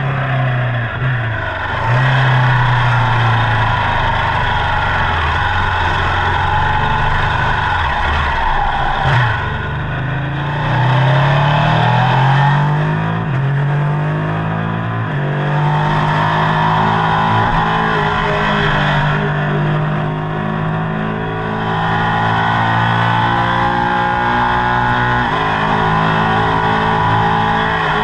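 Ducati Panigale engine and exhaust on the move, its pitch rising and falling with the throttle and gear changes. There is a strong climb in pitch about ten seconds in, then steadier running at cruise.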